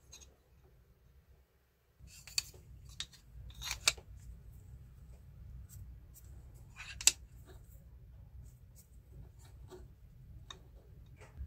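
Small clicks and taps of a marker pen and a small metal square being handled against a wooden pen blank, with the loudest sharp click about seven seconds in. A low steady hum sets in about two seconds in.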